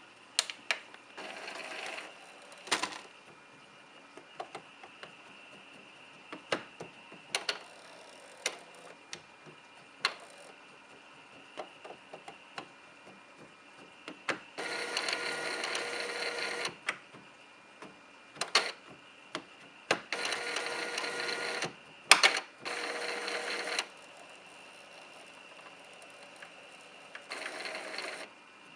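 Epson T50 inkjet printer working, with stretches of motor running a couple of seconds long, broken by sharp knocks and clicks. The knocking is an unexplained fault that the owner is asking about.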